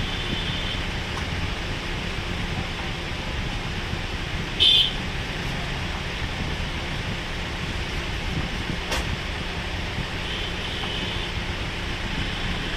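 Steady background noise with a low rumble, with a short, loud, high-pitched squeak about four and a half seconds in and a faint click near nine seconds.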